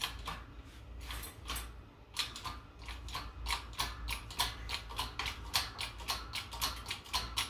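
Hand-pumped hydraulic bottle jack of a 12-ton shop press being worked, its pump mechanism clicking with each stroke while it presses a bearing inner race off a transmission countershaft. The clicks are sparse at first and settle after about two seconds into a quick, even rhythm of about four a second.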